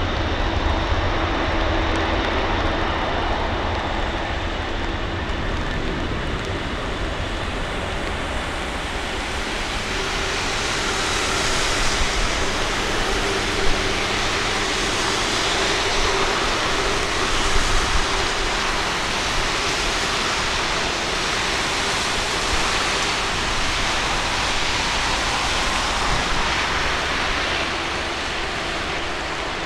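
Four-engine Boeing 747 freighter's jet engines at takeoff power, a steady roar as it rolls away down the wet runway through its own spray. The roar grows brighter and more hissing about ten seconds in.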